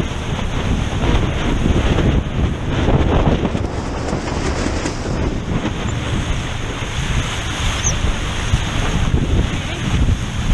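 Wind buffeting the microphone over the rush and splash of water off the hull of a Weta trimaran sailing fast, with spray breaking over the bow.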